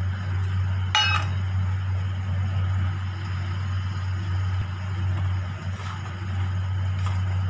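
A single bright metallic clink that rings briefly about a second in, a steel bowl knocked against the pan, over a steady low hum. Near the end, a wooden spatula scrapes softly as it stirs the mixture in the pan.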